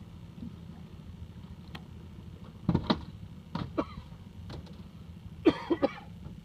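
Boat's outboard motor idling with a steady low hum, with a few short louder sounds about three seconds in and again near the end.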